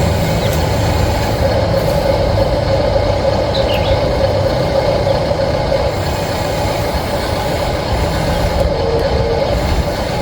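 Radio-controlled scale construction machine running, a loud steady mechanical drone with a constant low hum.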